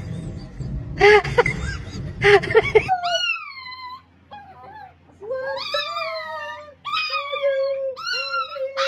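Small Chihuahua-type dog howling in long, high, held howls with slight wavers, after a falling whine and a few short yips. It is preceded for about three seconds by a busy mix of knocks and muffled voices.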